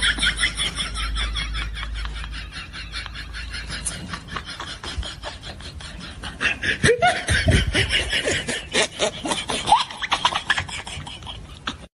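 Continuous laughter in rapid repeated pulses, loudest at the start and again in the second half.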